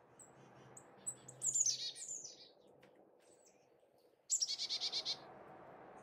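Small songbirds at a seed feeder calling. A few high thin peeps come first, then a quick run of falling notes, then near the end a fast series of about nine harsh repeated notes.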